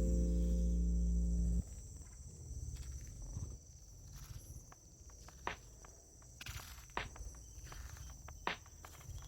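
A sustained ambient music chord cuts off about one and a half seconds in. It leaves a steady high-pitched insect drone, broken by a few sharp clicks about every second and a half.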